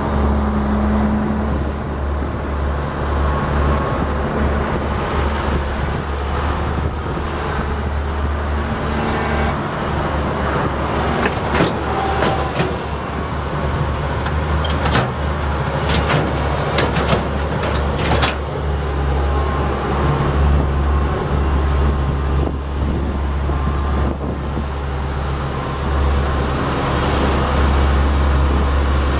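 Cummins 8.3-litre six-cylinder diesel engine of a Ford LT8000 dump truck idling steadily with a deep drone. A handful of sharp clicks or knocks come through around the middle.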